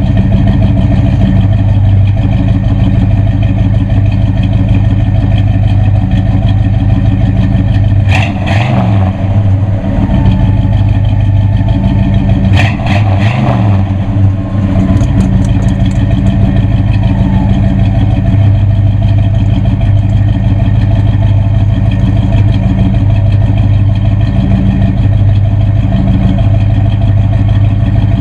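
Oldsmobile 455 V8 idling steadily through Flowmaster mufflers while the power convertible top cycles. Two brief clattering clunks break through, about 8 and 13 seconds in.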